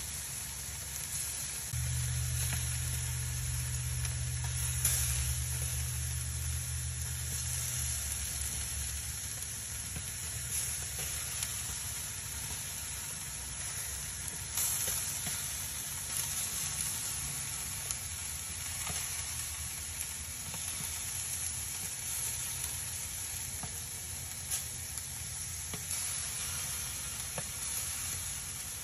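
Charcoal briquettes burning in a grill: a steady hiss with scattered crackles and pops. A low hum joins about two seconds in and dies away several seconds later.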